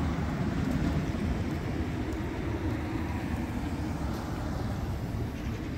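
A car driving past close by, its tyre and engine noise loudest in the first second or two, over a steady rumble of street traffic.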